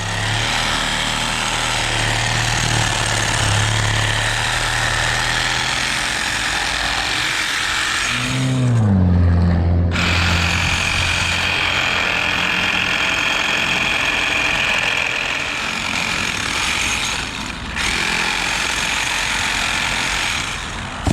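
A power saw runs continuously while cutting tree branches. Its motor note drops sharply in pitch about eight and a half seconds in and then carries on at the lower pitch.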